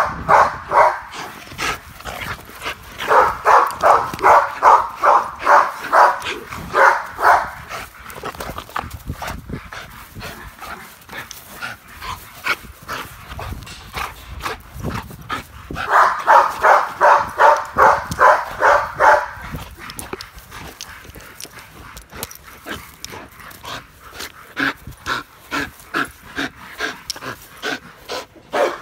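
Kenneled dogs barking in rapid volleys of about three barks a second, breaking off and starting again several times; they are barking at one another over another dog playing.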